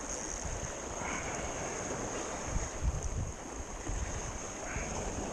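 Wind buffeting the microphone, a gusty low rumble, over a steady hiss of sea water.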